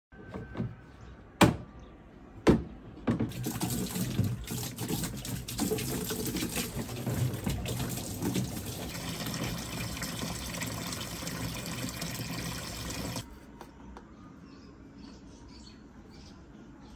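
Two sharp knocks, then water runs steadily for about ten seconds and cuts off suddenly.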